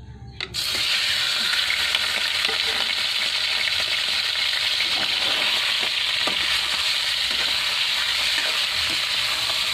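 Raw pork belly pieces dropping into hot oil in a wok and sizzling. The sizzle starts suddenly about half a second in and runs on steadily while a spatula stirs the meat. This is the start of searing the pork until it renders its fat and turns golden brown.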